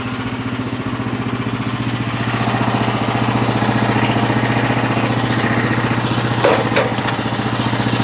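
Small gasoline engine of a Frontier OS23 portable band sawmill idling steadily, with an even pulsing note. Two short knocks sound about six and a half seconds in.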